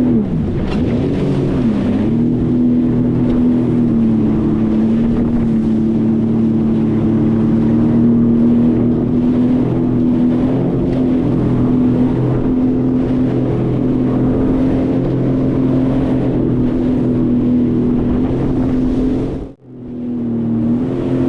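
Sea-Doo FishPro Sport 170 personal watercraft running at a steady cruise, its engine pitch dipping briefly at the start and then holding even. The sound cuts out for a moment near the end.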